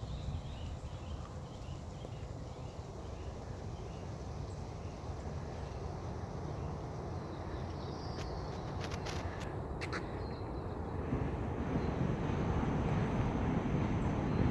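Outdoor ambience: a steady low rumble of wind on the microphone that grows louder near the end, with faint bird calls early on and a few sharp clicks about eight to ten seconds in.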